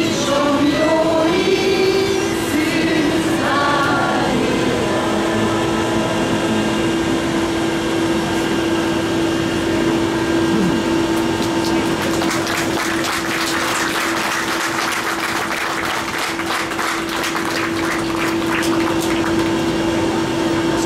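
Choir singing a hymn, the voices dying away in the first few seconds, leaving a steady held tone. A rushing noise grows in from about twelve seconds in.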